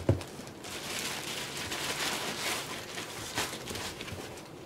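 A thump right at the start, then a plastic shipping bag rustling and crinkling as cardboard boxes are pulled out of it and set on a wooden workbench.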